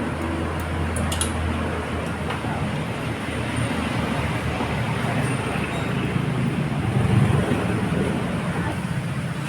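Steady road traffic noise, with a low hum during the first two seconds and a few faint clicks about a second in.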